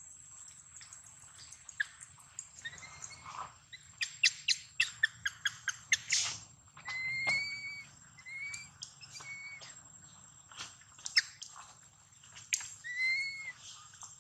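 Baby long-tailed macaque giving short, high, whistled coo calls, each rising and falling in pitch, several times in the second half. Before them comes a quick run of about eight sharp clicks.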